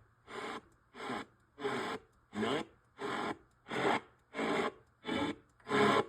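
AM band of a Sony Dream Machine ICF-CD855V clock radio being stepped through the dial: about ten short bursts of static and snatches of stations, roughly one every 0.6 seconds, with the sound muting between steps. The static reflects the weak AM signal indoors.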